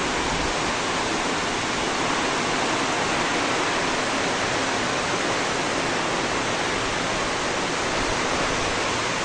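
Heavy rain falling steadily, a continuous even hiss of a downpour.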